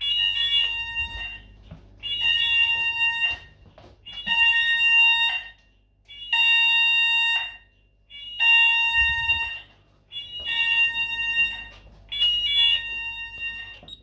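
C-Tec fire alarm sounder sounding a pulsed tone in alarm after a manual call point test, with a beep lasting just over a second about every two seconds.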